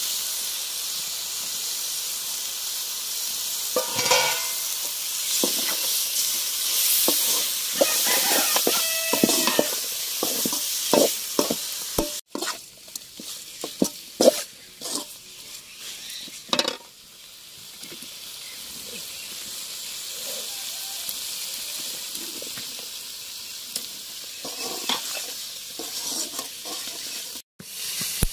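Chicken gizzards sizzling in hot oil and masala in an aluminium kadai, with a steel ladle stirring and scraping against the pan. The sizzle is loudest in the first half; after a break about 12 seconds in it is quieter, with scattered scrapes.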